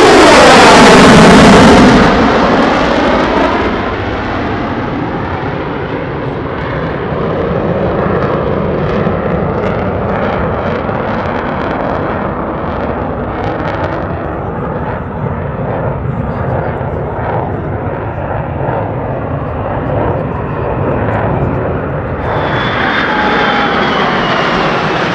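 F-22 Raptor's twin Pratt & Whitney F119 turbofans in full afterburner ripping past, very loud, with the pitch dropping quickly in the first two seconds. Then a steady jet rumble carries on. Near the end a higher whine comes back and falls in pitch as the jets come round again.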